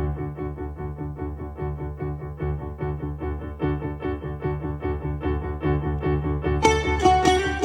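Piano starting a piece with a steady, evenly pulsed accompaniment of repeated notes; near the end a bouzouki comes in with bright plucked notes over it.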